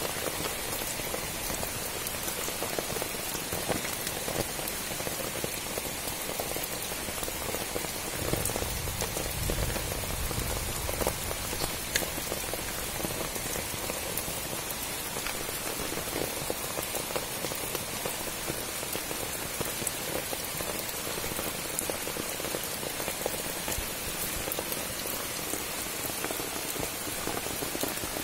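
Steady rain falling, a dense run of small drop hits with an occasional sharper click.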